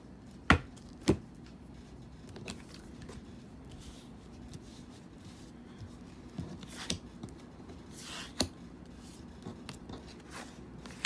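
Oracle cards being slid and laid down on a wooden table, with sharp taps as they land: two loud ones about half a second and a second in, then a few softer taps and brief scuffs.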